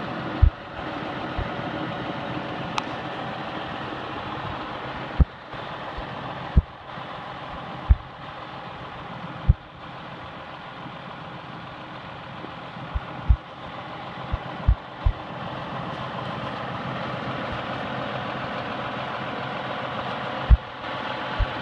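John Deere 6140R tractor's diesel engine idling steadily, with about a dozen short, sharp low thumps scattered through.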